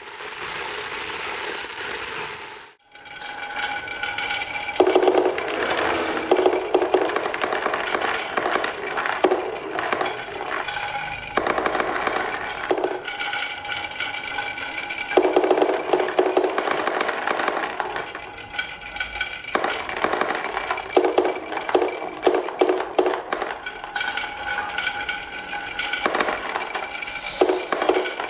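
Marbles rolling and clattering down a wooden HABA marble run: a dense rattle of clicks over a steady rolling hum, easing off and picking up again several times.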